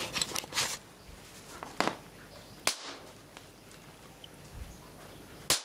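Sharp bang as a charged capacitor bank is discharged into a button cell battery and the cell pops, near the end. A few fainter clicks come before it.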